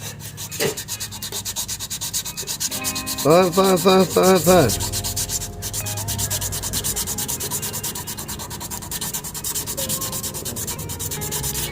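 Sandpaper rubbed by hand over cured body filler in quick, even back-and-forth strokes, several a second, with a brief spoken word about four seconds in.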